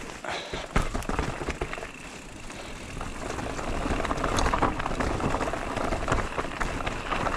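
Haibike SDURO FullNine 4.0 electric mountain bike riding over a rough forest trail: tyres on roots and stones, with many quick clattering knocks from the bike. The noise builds about three seconds in.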